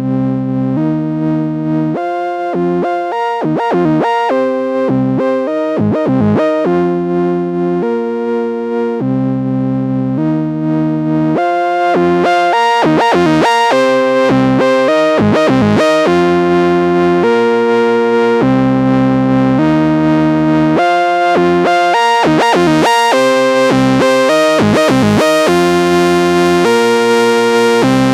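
Moog Subsequent 25 analog synthesizer playing the "Opus III Moog" patch under sequencer or arpeggiator control. Held chords alternate with quick runs of short notes, and the sound grows louder and brighter about twelve seconds in.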